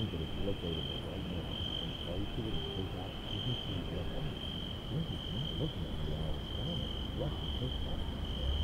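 Crickets chirping in a steady, high, slightly pulsing trill, over a low rumble.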